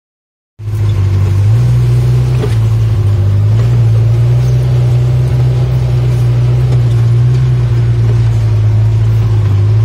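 Polaris Ranger side-by-side utility vehicle's engine running with a steady low drone while driving over a rough grassy track, starting about half a second in, with a few faint knocks.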